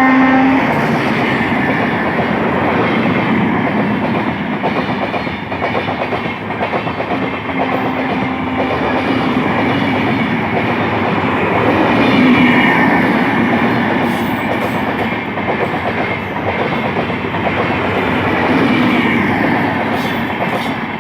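A high-speed passenger train passing close by: a horn blast cuts off about half a second in, then the coaches' wheels keep up a steady, dense rattle and clatter over the rails.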